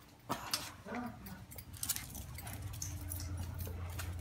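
A small dog gives a couple of short whimpers among scattered clicks, taps and jingles of movement, and a steady low hum comes in about halfway through.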